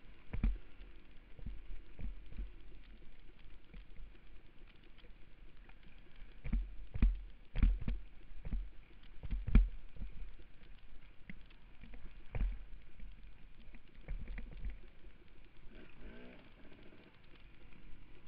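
Irregular low thumps and knocks from the jolts of a dirt bike riding a rough forest trail, picked up by a camera mounted on the bike, with wind buffeting the microphone. A brief wavering engine note comes through near the end.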